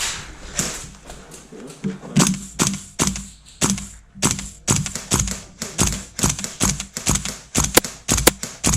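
KWA LM4 gas blowback airsoft rifle firing a long string of semi-automatic shots, each a sharp clack of the bolt cycling. The shots come about two to three a second and quicken near the end.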